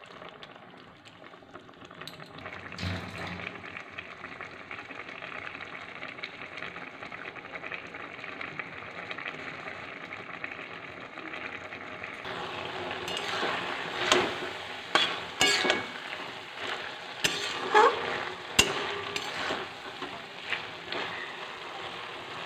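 A watery mustard-poppy vegetable curry bubbling and sizzling in a metal kadai as it cooks down, stirred with a metal spatula. In the second half the spatula scrapes and clinks sharply against the pan several times.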